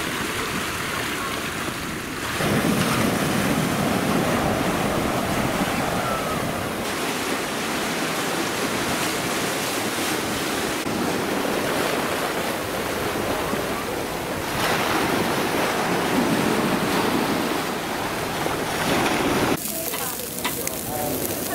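Seawater surging and washing against a stone harbour wall and through the arches under a granite pier, a steady rushing wash that shifts in level at several cuts. Near the end it gives way to a quieter background with faint voices.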